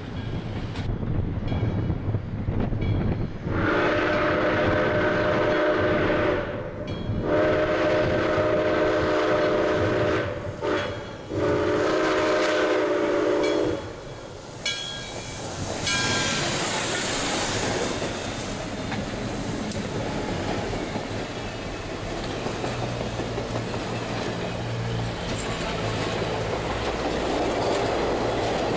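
Southern Railway 630's steam locomotive whistle blowing the grade-crossing signal: two long blasts, a short one, then a long one. The engine then passes with a rush of noise, and its passenger cars roll by with a steady rumble and wheel clatter.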